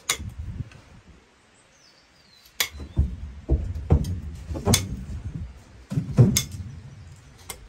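Farrier's hoof nippers snipping through an overgrown donkey hoof: sharp cracks of the horn being cut, one at the start and then about seven more at irregular intervals after a short pause, with dull knocks of the hoof against its wooden stand.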